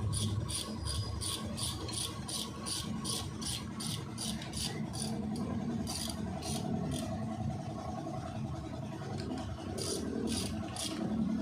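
Ratchet wrench clicking in quick, even strokes, about four a second, while bolts on the newly fitted cylinder head are tightened. The clicking stops about seven seconds in and comes back briefly near the end.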